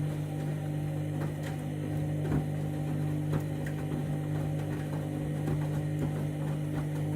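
Candy front-loading washing machine in its main wash, the motor humming steadily as the drum turns, with a few soft knocks from inside the drum.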